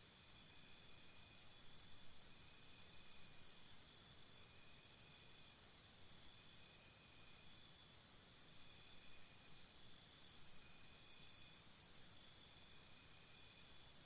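Jungle morning ambience: a faint, steady chorus of insects chirping in high pulsed trills. One louder trill of about five pulses a second stands out twice, each time for about three seconds.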